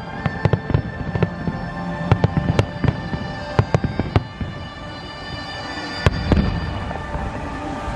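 New Year fireworks bursting: a quick crackle of sharp bangs that thins out around the middle, then one loud bang about six seconds in, with music playing underneath.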